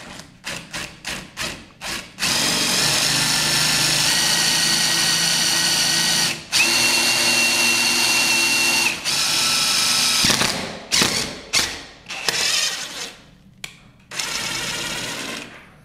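DeWalt cordless impact driver spinning an IDEAL combination drill-tap bit into the steel back of a metal switch box, drilling and tapping a 10-32 hole for a ground screw. It starts with several quick trigger bursts, then runs in long steady spells, one of them with a high whine, then goes back to short bursts near the end.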